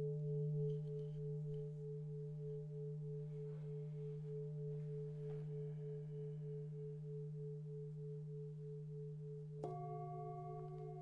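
Singing bowls ringing on: a low steady hum under a higher tone that wobbles in even pulses, slowly fading. Near the end another bowl is struck, adding a brighter ring of several higher tones.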